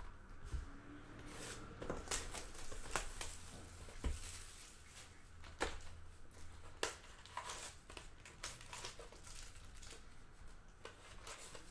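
Plastic trading-card pack wrappers crinkling and tearing as basketball card packs are opened and handled, with cards rustling. The sound is a run of irregular sharp crackles and rustles.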